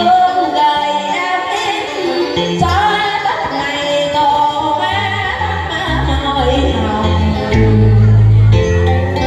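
A woman singing a Vietnamese duet ballad into a handheld microphone over amplified backing music. A deep bass line grows stronger in the second half.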